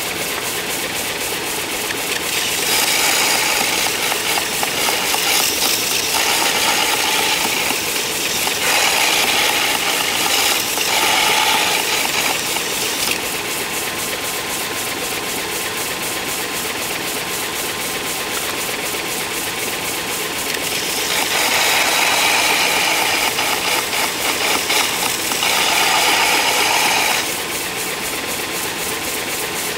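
Shopsmith-driven 6-inch belt sander running steadily with a fast, even tick. A steel lathe chisel, held in the sharpening guide, is ground against the fine belt in louder, grittier passes from about two seconds in to about thirteen seconds, and again for several seconds past the middle.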